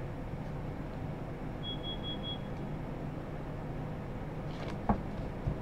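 Room tone with a steady low hum. About two seconds in there is a short high electronic beep, three or four quick pips, and a single sharp click comes near the end.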